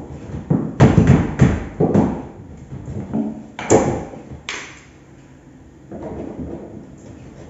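Hammer blows on a chisel against the wall by a window frame: a quick run of sharp knocks about a second in, two more near four seconds in, then softer tapping.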